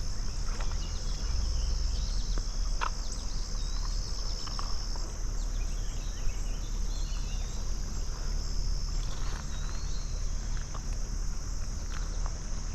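A steady, high-pitched drone of summer insects, with a few faint short chirps and scattered small clicks over it.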